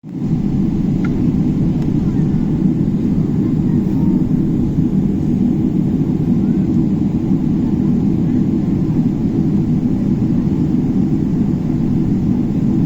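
Steady low rumble of a Boeing 777 airliner heard from on board: engine and airframe noise, even in level throughout.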